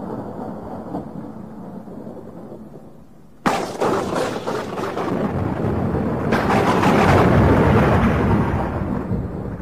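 Thunder: a low rumble dies away, then about three and a half seconds in a sudden sharp crack breaks into a long rolling rumble that swells and slowly fades.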